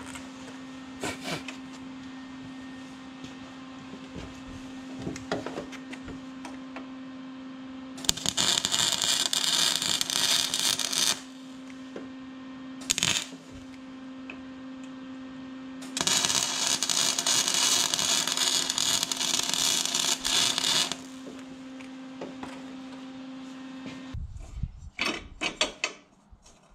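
Two bursts of a power tool, each a few seconds long, a few seconds apart, with a few light knocks, over a steady machine hum that stops near the end.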